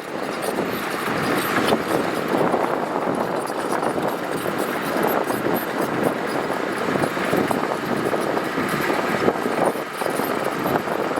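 Heavy earthmoving machinery moving gravel: a diesel engine running steadily under load, with a dense rattle of many small clicks.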